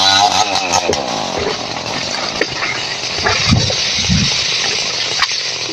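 Chainsaw engine coming off high revs, its pitch falling in the first second, then running rough among scattered cracks and knocks. Two heavy low thumps come about three and a half and four seconds in.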